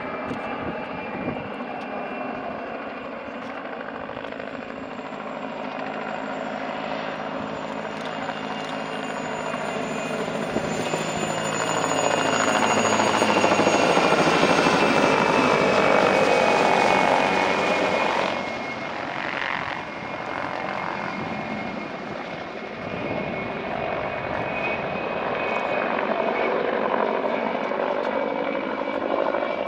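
PZL Mi-2 helicopter flying low past: the whine of its twin GTD-350 turboshaft engines over the noise of its rotors. It swells to its loudest around the middle, drops off sharply about two-thirds of the way through, then builds again near the end.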